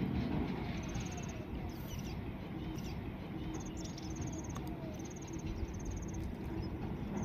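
Insects chirping outdoors: short, high, pulsed trills repeating every second or so, over a steady low background rumble. A run of short falling notes sounds through the first half.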